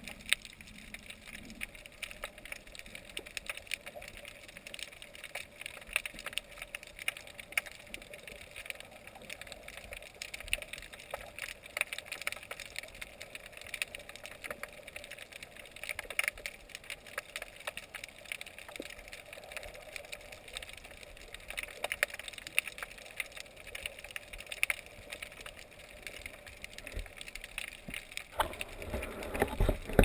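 Underwater crackle: a dense, irregular patter of small clicks and snaps, picked up by a camera in a waterproof housing beside a rocky reef. Near the end a low rush of water swells as the camera rises toward the surface.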